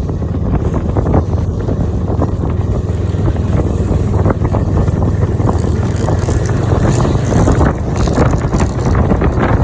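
Wind buffeting the microphone with a heavy, steady rumble while riding along, over a dense run of short crackles and scrapes.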